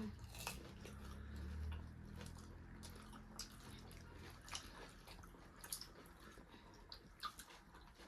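Faint wet mouth sounds of people eating: chewing, lip smacks and soft clicks scattered a few times a second.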